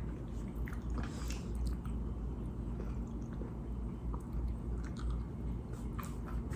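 A person quietly chewing a snickerdoodle cookie that is crunchy outside and soft inside, with scattered small crunches over a low background hum.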